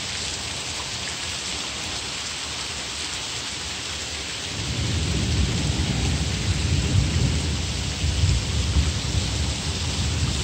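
Steady rain falling. About four and a half seconds in, a long low rumble of thunder begins and rolls on, swelling in waves.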